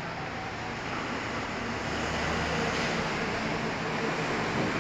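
Steady outdoor background noise, a wide even hiss with a low hum, growing slightly louder.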